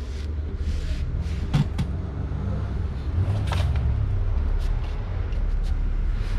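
A low, steady mechanical rumble, like an engine running nearby, with a few light clicks of metal hardware being handled.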